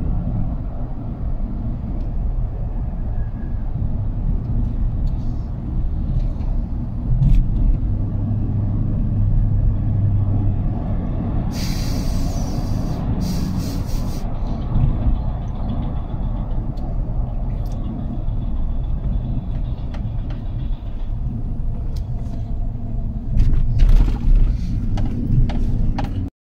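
Steady low rumble of engine and road noise heard inside a pickup truck's cab while driving, with a brief high hiss about twelve seconds in lasting a couple of seconds, and a few louder bumps near the end before the sound cuts off.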